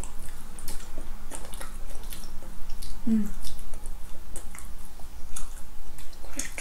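Close-up chewing of soft glazed doughnut: wet, sticky mouth clicks and smacks at irregular intervals, with a brief low hum about three seconds in.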